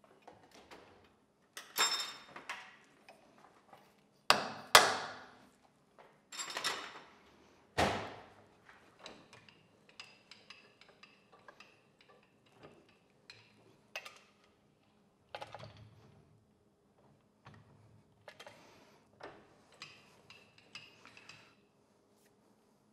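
Heavy steel lathe chuck knocking and clanking against the Monarch lathe's spindle nose as it is worked loose by hand. There are a few loud metal knocks in the first eight seconds, then lighter clinks and taps.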